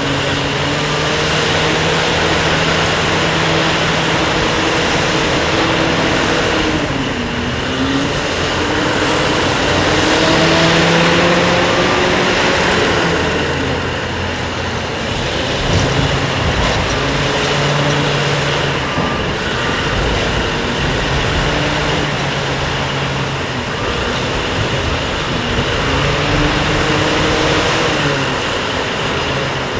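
Heavy mining machinery running steadily: a large power shovel loading a coal-hauling truck, with machine tones that slowly rise and fall in pitch as the load on its motors changes.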